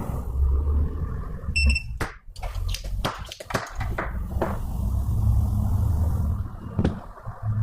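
A short electronic beep about one and a half seconds in, then a run of sharp clicks and scrapes from small repair tools, over a low handling rumble.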